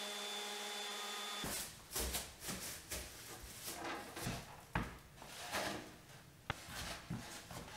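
DeWalt random orbital sander with 80-grit paper running steadily on the plywood shelf edges, cutting off about a second and a half in. Then scattered knocks, scrapes and rubbing as the wooden bookshelf units are handled and carried.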